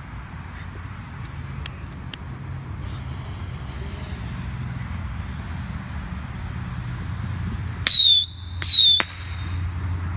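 Two short whistling fireworks, each a falling whistle under half a second long, about a second apart near the end, over a steady low rumble with a few faint distant pops.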